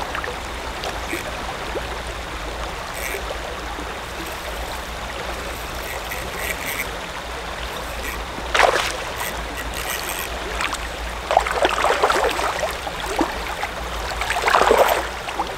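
Creek water running steadily over shallow riffles, with several sharp splashes over it: one about nine seconds in, a cluster a couple of seconds later, and another near the end.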